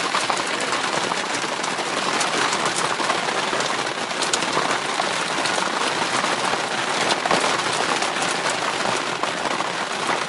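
Heavy downpour: a dense, steady hiss of rain with countless fine drop ticks, unbroken throughout.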